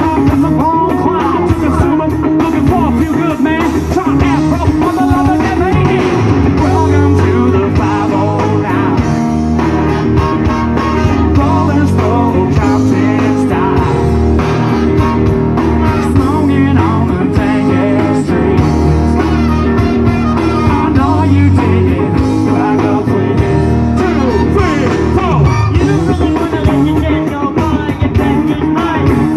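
A live rock band with a horn section, electric guitar, bass and drums playing a loud, steady tune.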